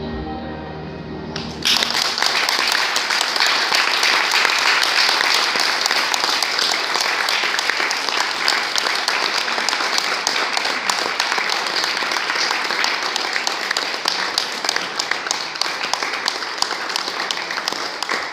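Music stops about a second and a half in, and an audience breaks straight into applause, a dense mass of clapping that holds steady.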